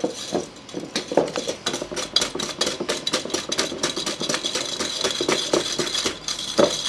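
Wire balloon whisk beating egg yolks and sugar in a glass bowl, clattering against the glass in rapid strokes, several a second. The yolks are being blanched, whisked until pale and fluffy.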